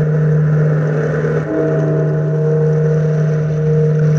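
A large bell tolling slowly in an old radio-drama opening, a fresh stroke about a second and a half in, its tones ringing on over a steady low hum and a rushing noise.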